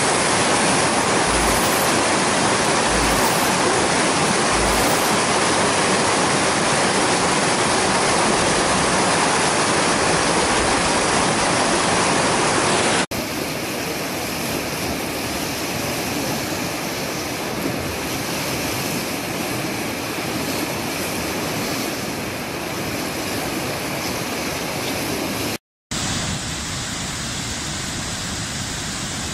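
Loud rushing water: a cascade pouring over rocks, then a fast, swollen river in flood and whitewater rapids. The sound shifts suddenly to a softer rush about 13 seconds in and drops out for a moment near the end.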